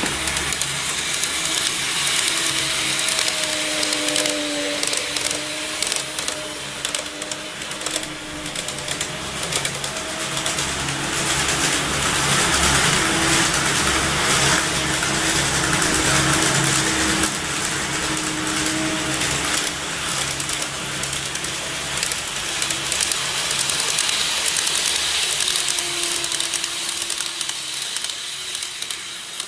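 N-gauge model train running on the layout's track: a small electric motor whining faintly over a steady rolling rumble and rail hiss, swelling to its loudest about halfway through and easing off toward the end.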